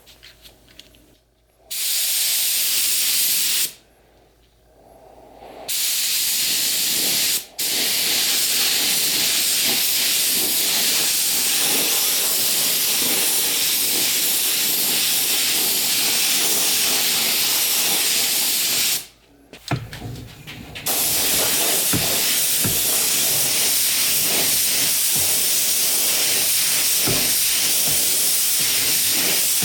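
SATA detail spray gun hissing with compressed air as it sprays Cerakote ceramic coating, in trigger pulls: two short bursts, then a long steady spray with a brief let-off partway, a pause, and another long spray.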